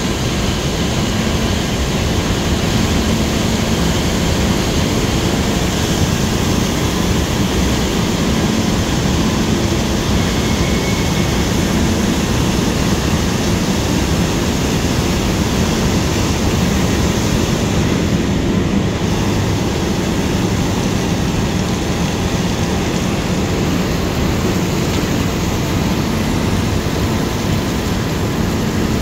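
Overhead grab crane hoisting a clamshell grab bucket, a loud, steady mechanical running noise, with water streaming off the grab.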